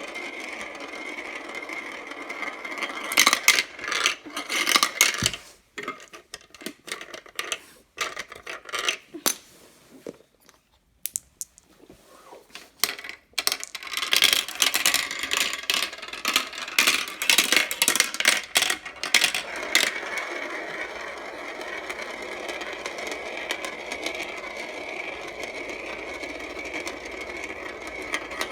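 Marbles rolling and clattering along a marble run track: a steady rolling rumble, broken by bursts of rapid clicks and clacks as they hit and drop. About a third of the way in, it briefly goes nearly quiet.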